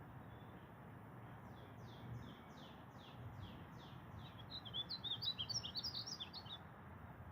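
Male painted bunting singing, faint: a run of about ten falling whistled notes that breaks into a quick, jumbled warble of short high notes.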